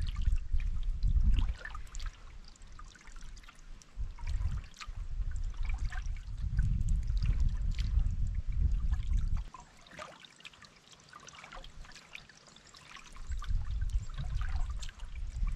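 Water trickling and dripping off a double-bladed paddle and splashing lightly at a pack canoe's hull as it is paddled, with scattered small splashes throughout. A low rumble of wind on the microphone comes and goes in gusts, dying away for a few seconds in the middle.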